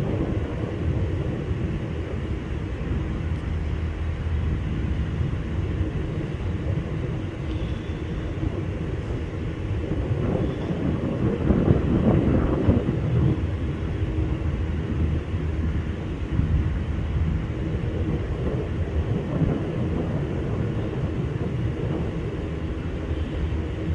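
Cessna 172B single-engine propeller plane flying over, a steady engine-and-propeller drone that swells to its loudest about halfway through, then eases off.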